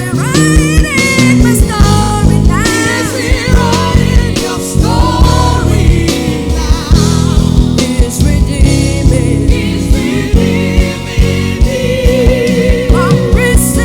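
Live gospel worship music: singers over a band with a steady beat.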